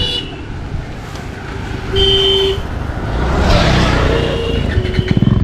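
Road noise with a short vehicle-horn toot about two seconds in, then a motorcycle engine running near the end with an even, fast pulse.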